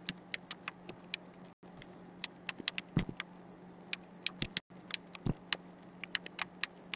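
Typing on a computer keyboard: a run of irregular keystroke clicks, some in quick clusters, over a faint steady low hum.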